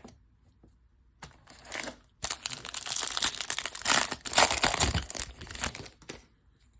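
Plastic wrapper of a Topps baseball card pack being torn open and crumpled: a short rustle, then dense crinkling from about two seconds in that lasts roughly three and a half seconds.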